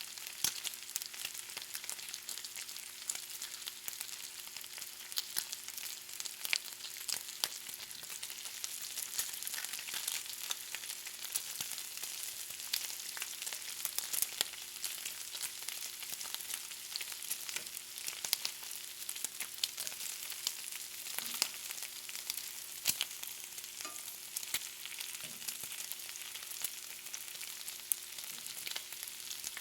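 Bacon frying: a steady high sizzle with frequent sharp crackles and pops throughout.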